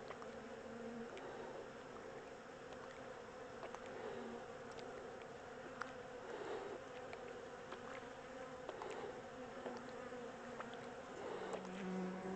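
Swarm of honey bees buzzing at an open hive: a steady, many-voiced hum, with scattered light clicks and a brief swell near the end.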